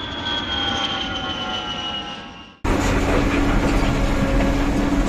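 Airplane sound effect: several slowly falling whining tones over a rushing noise, like a plane passing, fading away about two and a half seconds in. It is cut off abruptly by the louder, steady running noise of a vehicle heard from inside its cab, with a steady low hum.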